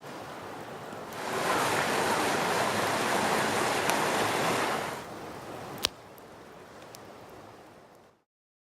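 Rushing river water, much louder for a few seconds in the middle, then quieter, with one sharp click near six seconds in. The sound fades out shortly before the end.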